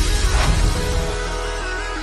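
TV news channel's intro jingle: a whoosh about half a second in, then a melody of short stepping notes over a steady bass.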